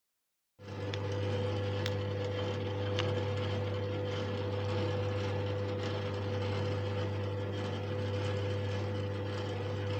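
Kia Optima's G4KD 2.0-litre four-cylinder petrol engine running at a steady speed: an even low drone with a steady higher tone over it, cutting in suddenly about half a second in.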